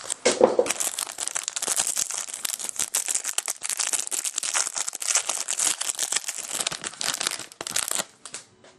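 Foil trading-card pack wrapper crinkling as it is torn open and handled: a dense run of sharp crackles that stops about eight seconds in.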